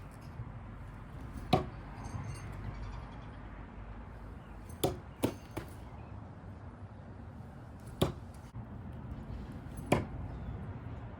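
Willow Leaf throwing knives thrown underhand, striking a target with sharp thunks: five hits spaced a few seconds apart, two of them in quick succession about five seconds in.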